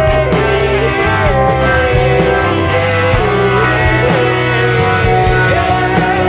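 Progressive rock band playing an instrumental passage live, with drum kit, bass and keyboards. A sustained lead melody slides and bends in pitch over the band, and cymbal crashes come about once a second.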